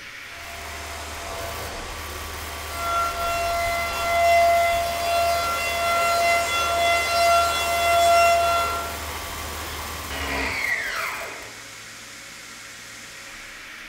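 Sandvik Coromant M5B90 face mill spinning and superfinishing an aluminium cylinder head: a steady, high-pitched whine of several tones over a low spindle hum. The whine falls away about ten seconds in as the spindle runs down, leaving a steady hiss.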